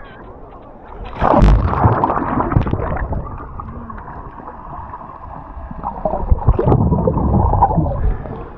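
Sea water splashing as a waterproof camera plunges under the surface about a second in. It is followed by muffled underwater sloshing and bubbling from a swimmer breathing out, then louder splashing as he and the camera break back through the surface near the end.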